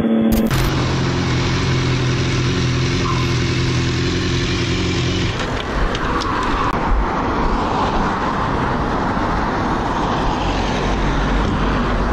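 Road traffic: a vehicle engine hums at a steady pitch for the first few seconds. It gives way to an even rush of road and wind noise, with a vehicle passing a few seconds later.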